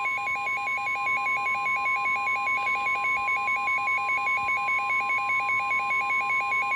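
Emergency Alert System attention tone: a steady tone under a fast, even warble of a low and a high tone alternating about six times a second, the alarm that opens a severe thunderstorm warning.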